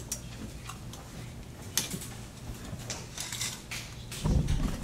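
Faint scattered clicks and light knocks over a steady low hum, with heavier low thumps starting about four seconds in.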